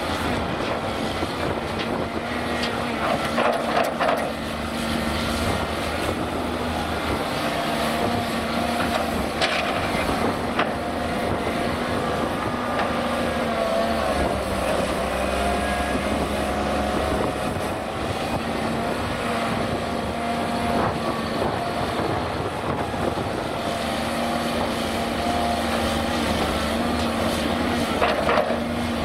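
Cat 330D crawler excavator's diesel engine and hydraulics working through digging and loading cycles, the engine pitch wavering up and down as it loads. A few short knocks and thuds come as bucketloads of soil are dumped into a steel tipper truck body.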